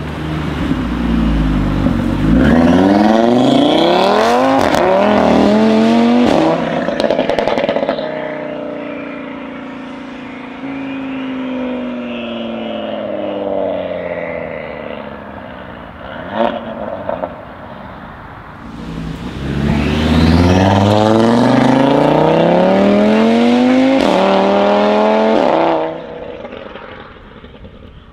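Tuned Audi TT RS with a TTE700 turbo and a decat Milltek exhaust, its five-cylinder engine accelerating hard twice. Each time the revs climb steeply through the gears with sharp cracks along the way, and each pull cuts off suddenly when the throttle closes. Between the two pulls the engine note falls away, with a single sharp pop about halfway through.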